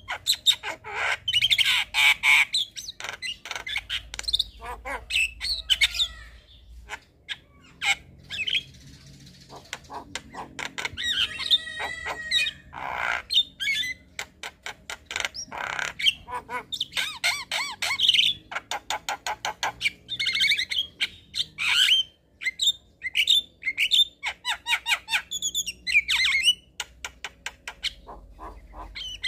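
Javan myna (jalak kebo) singing in a long, unbroken stream of harsh squawks, sharp clicks and whistled notes, with a quick rattling run about eleven seconds in.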